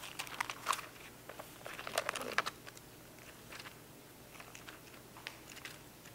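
Thin Bible pages rustling and crinkling as they are turned, a cluster of rustles in the first two and a half seconds followed by a few faint ticks.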